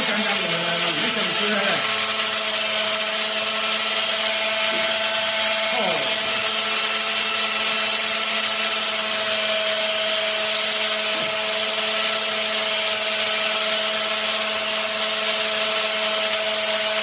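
Corded electric power tool, the 'saw' used as a hair cutter, running steadily as it is worked through a man's hair: a constant motor whine over an even hiss.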